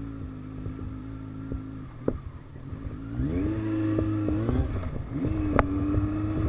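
Kawasaki Z1000R's inline-four engine running through an aftermarket Vmax muffler while riding: steady revs, then the revs climb about three seconds in, drop briefly, and climb again about five seconds in. A sharp click sounds about five and a half seconds in.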